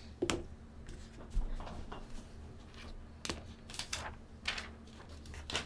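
Handling noise on a tabletop: scattered light clicks and knocks, with one dull thump about a second and a half in.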